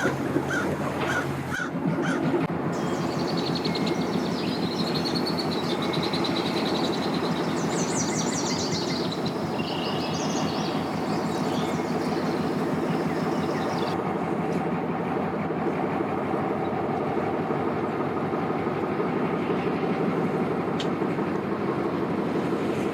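A steady engine drone, with birds chirping over it through the first half.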